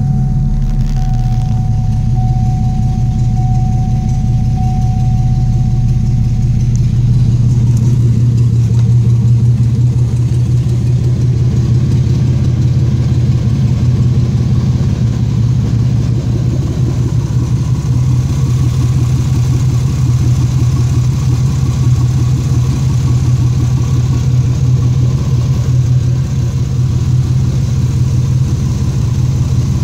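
2004 Pontiac Grand Am's 3.4-litre 3400 pushrod V6 idling steadily, a low even hum with no revving.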